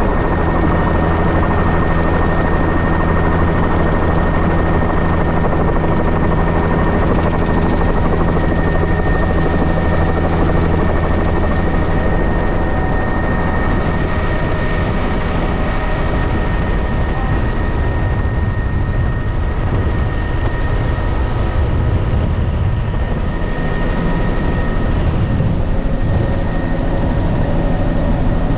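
Helicopter in flight, heard from on board: a loud steady rotor and engine noise with a thin, steady high whine over it.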